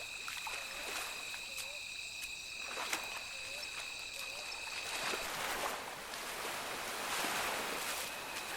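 Outdoor ambience of insects droning steadily in two high tones, with a faint short call repeating about every second and scattered clicks. A rushing, splashy noise swells up from about five seconds in and fades near the end.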